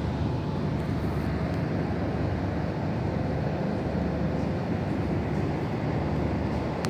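Storm wind blowing hard: a steady, dense rumbling noise, heaviest in the low end.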